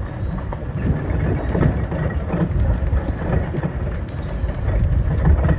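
A cart pulled by a team of sled dogs rolling over a dirt and gravel trail: a steady, loud rumble of wheels with irregular rattles and knocks, and wind on the microphone.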